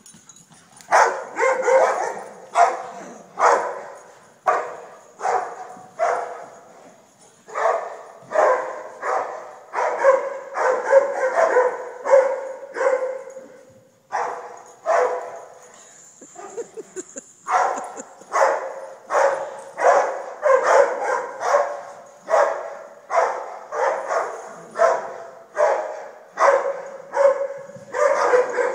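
Puppies play-barking over and over while chasing a big ball, about one or two barks a second, with a pause of a few seconds midway.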